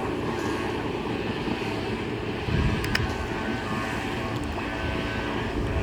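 Boat engine running steadily, with a brief louder low rumble about two and a half seconds in and a sharp click near three seconds.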